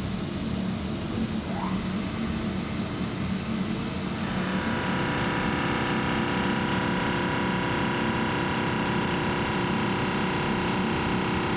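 CNC machining-centre spindle running an indexable thread mill, circularly milling an external M48x2 thread into ductile cast iron. The machine runs with a steady low hum. From about four seconds in, a steady whine with several tones sets in as the cut runs, and the sound gets a little louder.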